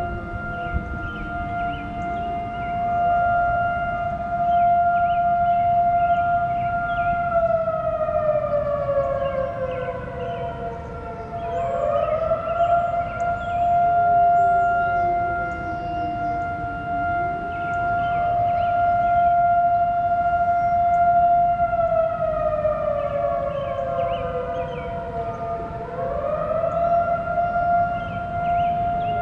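Tornado warning sirens (STH-10s and a Model 5A) sounding together. One holds a steady tone, while others slowly slide down in pitch and rise back up about every 15 seconds, and the overall loudness swells and fades.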